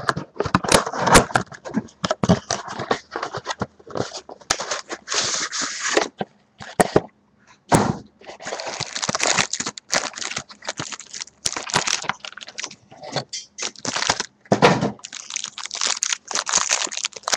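Hands tearing open a trading-card box and its wrappers: irregular crinkling and crackling with many sharp snaps and clicks.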